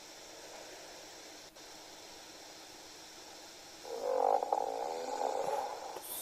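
A sleeping man snoring once, with a Breathe Right nasal strip on his nose: a rattling, fluttering snore of about two seconds that starts about four seconds in, over steady recording hiss.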